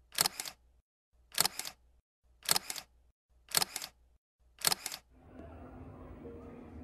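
Camera shutter clicking five times, about one a second, each a quick double click. About five seconds in, a steady faint hum with a low tone takes over.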